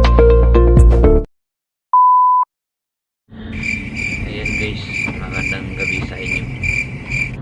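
Music ending about a second in, a short steady beep, then crickets chirping in the night at about two chirps a second over a low background hiss.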